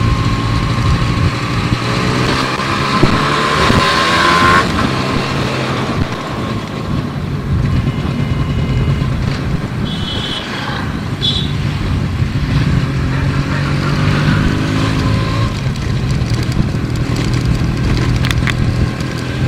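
Yamaha RX 135's single-cylinder two-stroke engine under way, rising in pitch as it revs through a gear for about four seconds, then dropping at the shift and carrying on at varying revs, with wind rush over the microphone.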